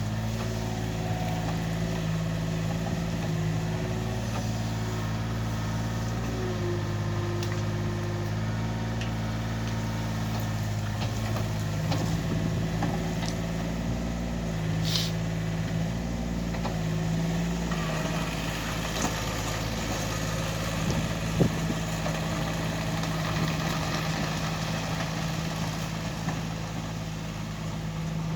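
Yanmar B27 backhoe's diesel engine running steadily under a working test, its note shifting several times as the load changes, with a few short clanks, the sharpest about 21 seconds in.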